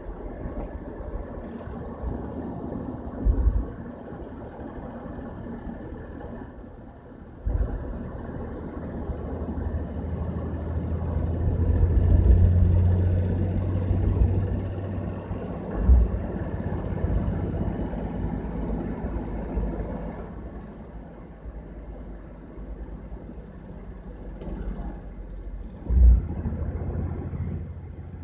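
Road and engine noise of a vehicle driving at speed: a steady low rumble that swells for a few seconds in the middle. Four short, low thumps stand out, the loudest near the end.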